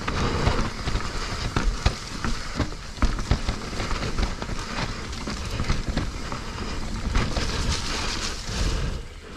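Mountain bike rolling fast down a rough dirt trail: tyres crunching over dirt and rocks, with frequent sharp knocks and rattles from the bike.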